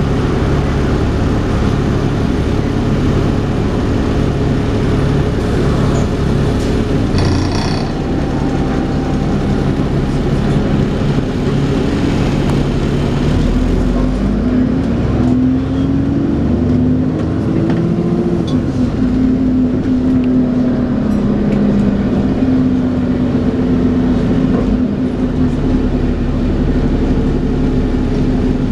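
Dennis Trident 2 double-decker bus running under way with its vacuum-cleaner-like "hoover" whine; the whine's pitch rises and falls about halfway through as the bus pulls away and eases off. A brief rattle about seven seconds in.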